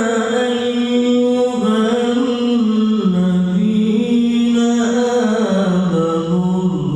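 A male qari reciting the Qur'an in melodic tilawah style, drawing out long held notes with fine ornaments. The melody steps down in pitch in stages, sinking lowest near the end.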